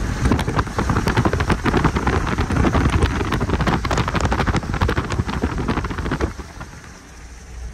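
Wind rushing and buffeting through an open car window at highway speed, with the car's road noise underneath. The noise drops away sharply about six seconds in.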